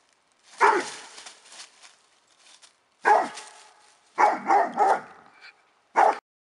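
Doberman Pinscher barking six times at a snake she has found in the leaf litter: a single bark, a pause, another, then three in quick succession and one more near the end.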